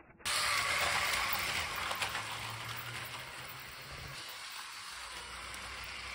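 Toy brick train running on grey plastic track, its wheels making a steady rattling hiss on the rails with a low hum under it and a few faint clicks.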